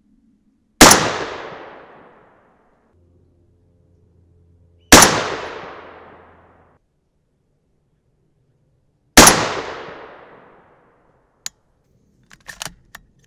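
Three unsuppressed rifle shots from a .223 AR-15 with a 20-inch White Oak Armament Predator barrel, about four seconds apart, each echoing away over a second or so. A few light clicks follow near the end.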